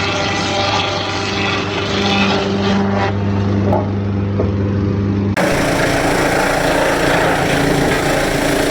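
Machinery running with a steady motor hum. About five seconds in it switches abruptly to a louder, rougher machine noise.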